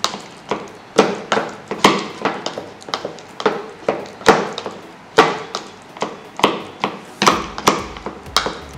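Pestle pounding avocado in a plastic mortar, mashing it: a steady run of sharp knocks, about two a second.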